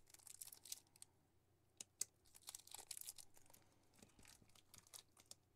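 Faint crinkling and tearing of the paper wrapper being peeled off a watercolour half pan, with a few sharp clicks as pans are handled and set into a plastic palette box.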